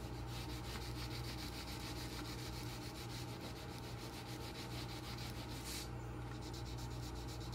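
Wax crayon scribbling back and forth on paper in rapid, even strokes as a background area is coloured in, stopping about six seconds in.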